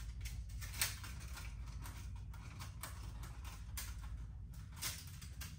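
Folding stove windshield being folded up by hand, its panels giving a string of irregular light clicks and rattles, the sharpest about a second in.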